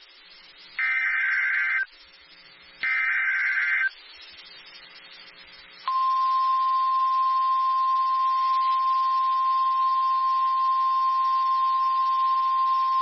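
NOAA Weather Radio emergency alert: the last two of the three Specific Area Message Encoding (SAME) digital header bursts, each about a second long and a second apart. About six seconds in, the steady 1050 Hz warning alarm tone starts. It announces a warning-level alert, here a tornado warning.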